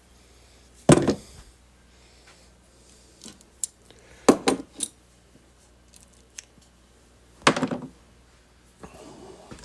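Clamps being taken off and handled: sharp metallic clanks and clinks, a loud one about a second in, a quick cluster around four seconds in and another near seven and a half seconds, with light ticks between.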